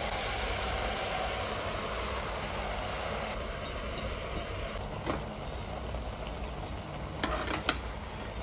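Washed basmati rice being tipped from a steel bowl into a pressure cooker of sautéed vegetables, over a steady hiss. In the second half come a few sharp metal clinks of the bowl and ladle against the pot.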